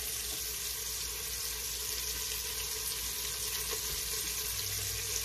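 Pieces of beef pot roast sizzling steadily as they sear in an Instant Pot's stainless steel inner pot.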